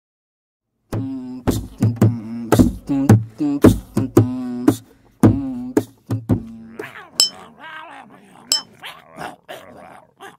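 A short beatbox-style music cue starts about a second in: a wavering, voice-like tone over sharp drum hits. After about seven seconds it gives way to quieter voice sounds with two bright glass clinks.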